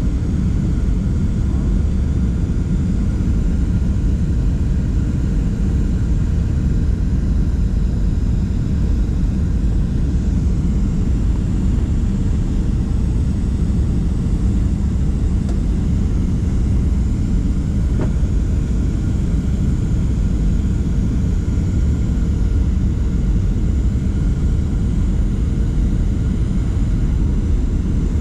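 Steady cabin rumble of a Boeing 737-700 on final approach, heard from inside the passenger cabin: its CFM56 jet engines and the airflow make an even, low noise with a faint steady whine above it. There is one brief click about eighteen seconds in.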